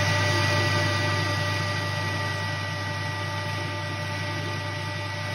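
Metal lathe running, its tool taking a light, steady cut in a steel bar: a steady motor hum with a few high whining tones and a hiss that eases a little toward the end.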